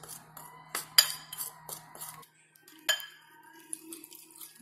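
Metal spoon stirring a dry flour mix in a bowl, clinking against the bowl several times; the sharpest clinks ring briefly about a second in and again near three seconds.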